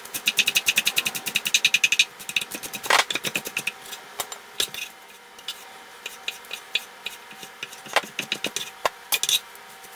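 Kitchen knife chopping onion on a wooden cutting board: quick strokes several times a second for about two seconds, then scattered single knocks of the blade on the board, the loudest about three seconds in.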